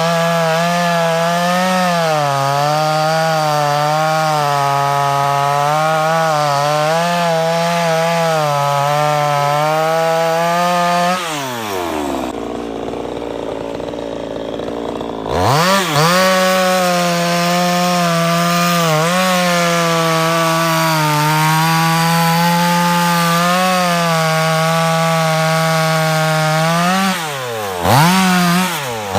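Chainsaw engine running at high revs while cutting wood. About eleven seconds in it drops to idle for roughly three seconds, then revs back up and cuts again. Near the end the throttle is blipped up and down several times.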